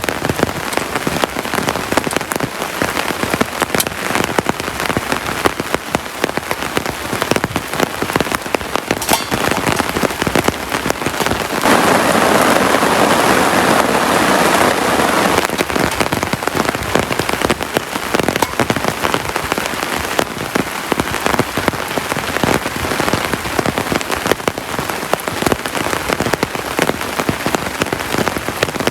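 Heavy rain falling steadily, with many individual drops ticking on a surface. About twelve seconds in, a louder rush lasts about four seconds, starting and stopping abruptly.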